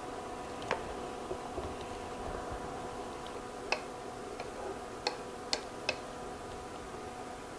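Wooden spatula tapping and clicking against a skillet while potatoes and onions are stirred into broth: a handful of sharp, separate taps, most of them in the second half. A faint steady hum with high tones from the induction cooktop runs underneath.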